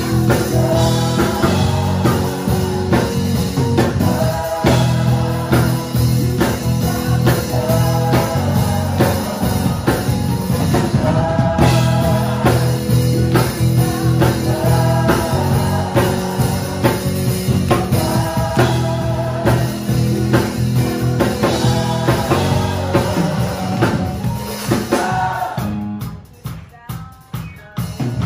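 A song with a singing voice over drums and a band, dropping away sharply near the end.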